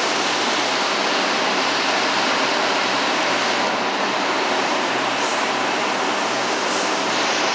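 Steady loud rushing noise of a subway station beside a standing R142 train, with a faint low hum underneath; no single event stands out.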